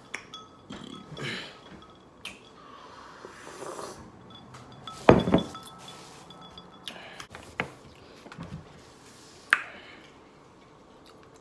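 Tableware sounds during a meal: scattered clinks and taps of a cup, a drink pitcher and a fork against a table and a foam takeout container. A sharp knock about five seconds in is the loudest of them.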